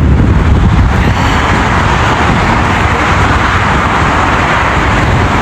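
Steady roar of road traffic, with a low rumble of wind on the microphone.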